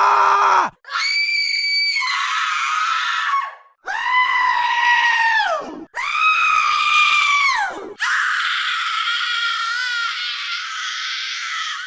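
A string of high-pitched screams played back to back as separate sound-effect clips with short gaps between them. The first cuts off about half a second in; two drop in pitch as they end; the last, longer one wavers.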